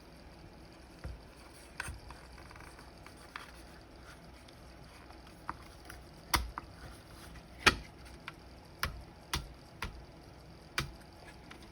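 A series of separate clicks and knocks, about ten, from the parts and housing of a vintage flip clock being handled during disassembly; the two loudest come in the middle.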